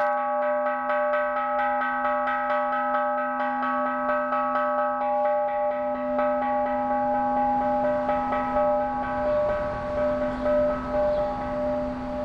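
Hanging bronze temple bell (kansho) ringing on after being struck with a wooden mallet: a low hum under several higher tones that waver as they sound. A fast run of light taps from the mallet keeps it sounding through most of it.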